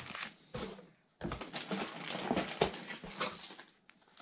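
Plastic lure packaging crinkling and rustling as it is handled, with a louder, denser stretch of rustling in the middle.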